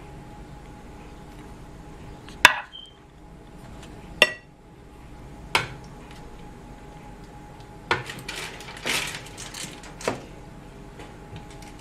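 Dishes and cookware clinking and knocking: single sharp clinks about two and a half, four and five and a half seconds in, then a short clatter around eight to nine seconds and one more knock near ten seconds, over a steady background hum.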